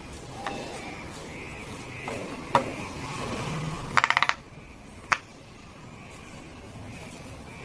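Silicone pop-it fidget toy bubbles being pressed through with a finger, each giving a sharp pop: single pops about half a second and two and a half seconds in, a quick run of about six pops around four seconds, and one more just after five seconds.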